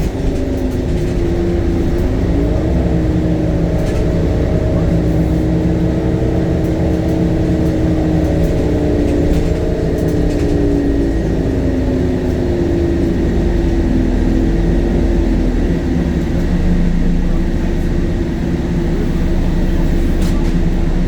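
Temsa Avenue LF city bus under way: its DAF diesel engine and ZF automatic gearbox running steadily over a low rumble. The engine tone rises about two seconds in, holds, then falls off around ten to twelve seconds in.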